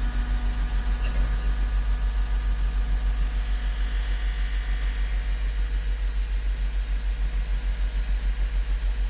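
Heavy machine's engine idling close to the microphone, a steady low rhythmic throb.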